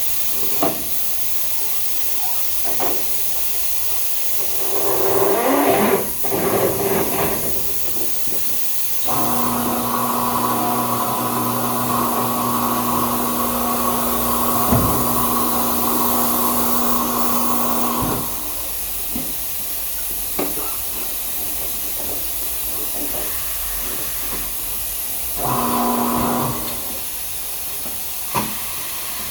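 Old Coseng tire changer's electric turntable motor running with a steady hum for about nine seconds, then briefly again near the end, over a steady hiss, with clanks and knocks of tire tools working the bead.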